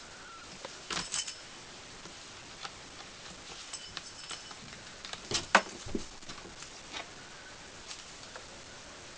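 Kittens playing at a pole: scattered clicks and knocks with brief metallic jingles, the loudest knock about five and a half seconds in.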